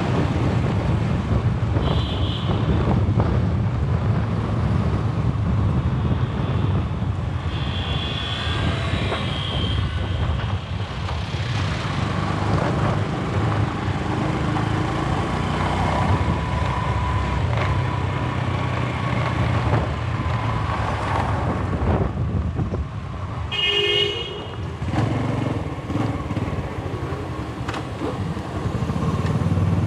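Motorbike riding through town traffic: steady engine and wind noise, with short horn beeps three times, the loudest about three-quarters of the way through.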